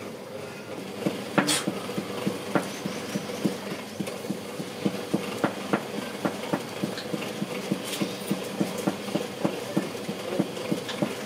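A kitchen utensil knocking against a metal cooking vessel in a fast, even rhythm of about three strikes a second, starting about a second in, with a couple of sharper clanks.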